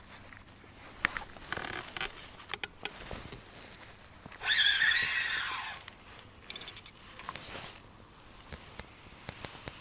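Fishing tackle being handled at the waterside: scattered clicks, taps and scrapes of rod, reel and gear. About halfway through, a louder sound lasts just over a second, followed by a short run of quick ticks.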